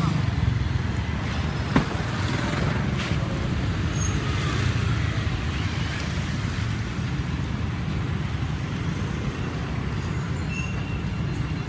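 Street traffic noise: a steady low rumble of passing vehicles, with one sharp click about two seconds in.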